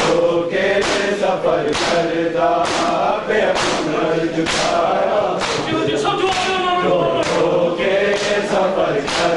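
A group of men chanting a noha in unison over chest-beating (matam): a sharp slap of many open hands on bare chests lands about once a second, in time with the chant.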